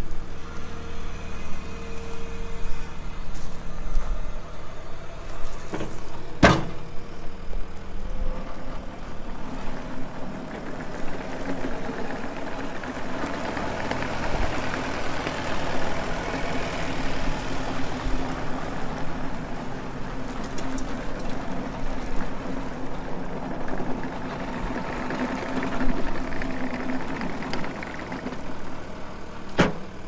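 New Holland C227 compact track loader's diesel engine running as the machine is driven about on its rubber tracks, getting louder in two stretches while it travels. A single sharp knock about six seconds in, and a smaller click near the end.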